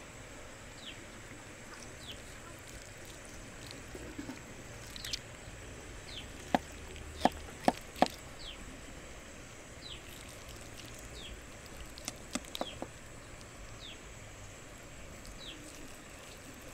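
Knife and fork clinking against a plate while a braised pork leg is carved: a few sharp clicks in two clusters, about six to eight seconds in and again about twelve seconds in. A short falling chirp repeats about once a second in the background.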